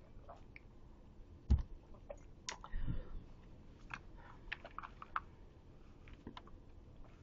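Faint, irregular clicking and tapping on a computer keyboard, with a soft thump about a second and a half in.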